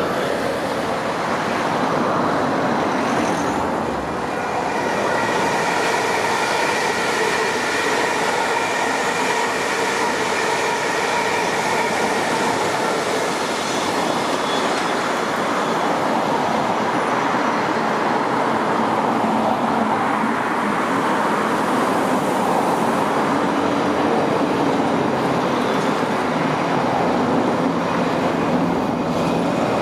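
Electric multiple-unit trains running past close by: a set of Class 450 Desiro units, whose traction equipment gives a steady whine for about ten seconds over the rumble of wheels on rail. A second train then runs directly past near the end, with a lower hum.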